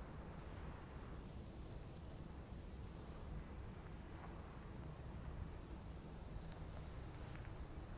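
Quiet outdoor background: a steady low rumble with faint high insect chirping and a few light ticks.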